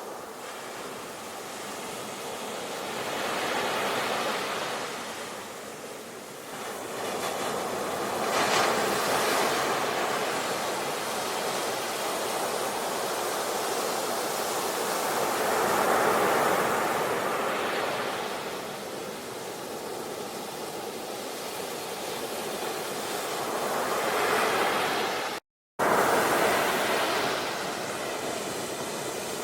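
Ocean waves surging and breaking on the shore, swelling and receding every few seconds. The sound drops out completely for a split second about three quarters of the way through, then the surf resumes.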